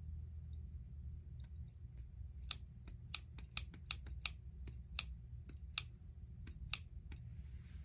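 The trigger group of a Charles Daly 601 DPS shotgun, removed from the gun, being worked by hand to find where the trigger catches: about a dozen sharp metallic clicks at uneven intervals.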